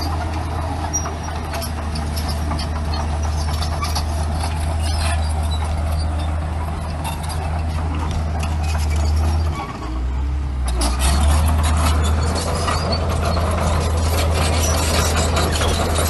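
Komatsu bulldozer's diesel engine running steadily under load. About ten seconds in the engine note shifts and briefly dips, then the sound grows louder and harsher.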